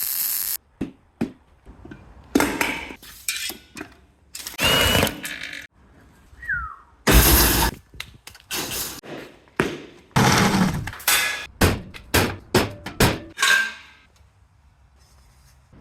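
A quick run of separate metal-shop noises from work on a steel bench frame: thunks and clanks of steel parts, short bursts of hissing noise typical of grinding or welding, and a brief squeak about six and a half seconds in.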